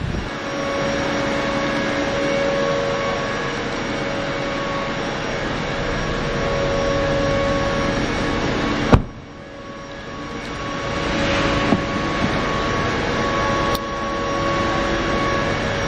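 A steady mechanical drone with a faint steady hum in it. About nine seconds in there is a sharp knock, after which the drone dips and swells back over a couple of seconds.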